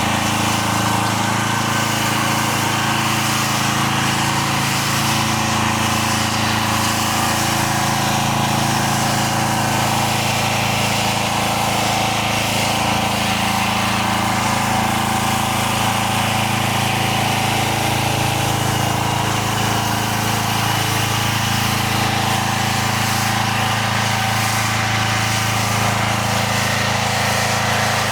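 Pressure washer's gas engine running steadily at lowered revs, with an even hiss over it.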